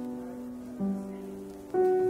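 Instrumental background music: a slow melody of held notes, moving to a new note about a second in and again near the end.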